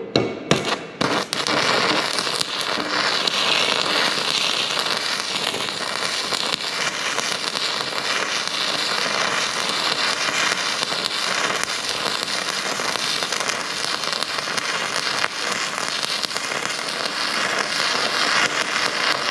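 Stick-welding arc from a Technolith electrode crackling steadily as a bead is laid. A few short strikes in the first second before the arc holds.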